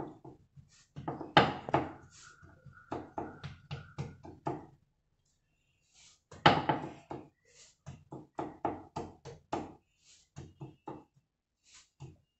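Jowar bhakri dough being patted out by hand on a floured wooden polpat: a string of soft thuds of palm and fingers on the dough and board. There is a short pause a little before halfway, then the patting goes on.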